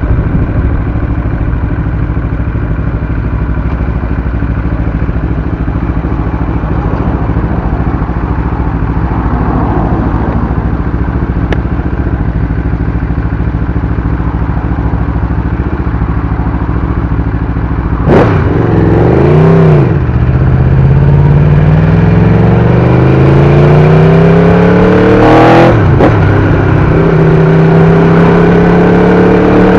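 Aprilia RSV4's V4 engine through an SC-Project exhaust, running at a steady pitch for a while, then blipped once a little past halfway and pulling away with a rising pitch, broken by an upshift near the end before it climbs again.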